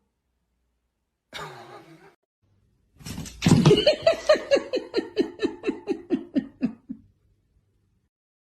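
A person laughing: a short vocal sound, then a long run of about fourteen rhythmic 'ha' pulses that fall slowly in pitch and fade out.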